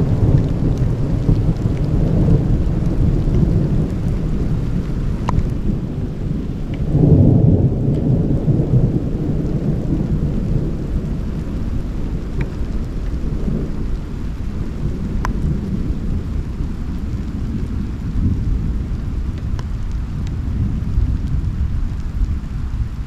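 Thunder rumbling low and continuously, swelling louder about seven seconds in, with a few sharp ticks.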